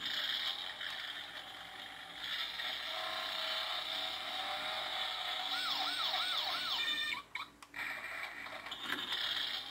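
Battery-powered toy police car's built-in electronic siren, set off by pressing the button on its roof light bar, playing from its small speaker with quick rising-and-falling wails. It cuts off about seven seconds in and starts again near the end.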